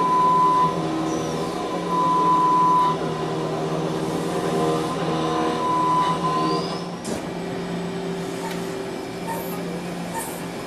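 CNC machine running with a steady hum. A high whine comes and goes three times in the first seven seconds, a short rising whine follows about six seconds in, and a sharp knock comes about seven seconds in, after which the machine runs on at a lower, even level.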